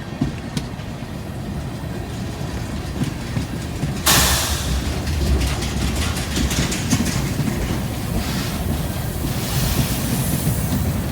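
Freight train rolling past: a steady low rumble of wheels with clicking over rail joints. A sudden louder rushing noise sets in about four seconds in.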